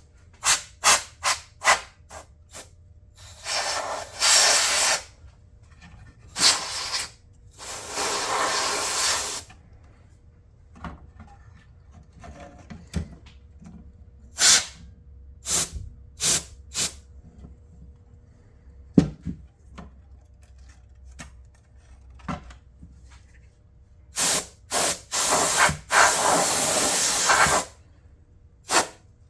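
Aerosol can spraying onto an electronics circuit board to clean it. It goes in a run of short hissing puffs, then several longer sprays of a second or two, with light clicks between.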